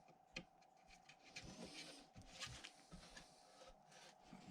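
Near silence: faint scattered light clicks and small handling knocks over a faint steady hum.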